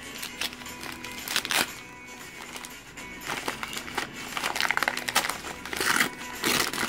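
Gift wrapping paper and tissue paper crinkling in several bursts as a present is unwrapped by hand, over background music.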